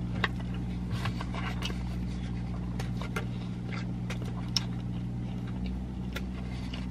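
Steady low hum of a car's idling engine inside the cabin, with soft clicks and smacks of chewing and a fork against a cardboard food tray.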